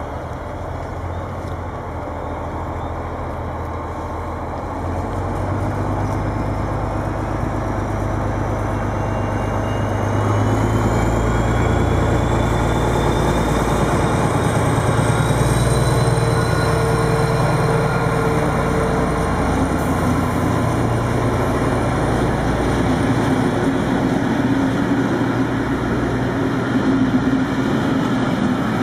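DB class 218 diesel-hydraulic locomotive passing with a passenger train, its deep engine rumble growing louder as it comes close and a rising whine climbing over several seconds partway through; its coaches then roll past.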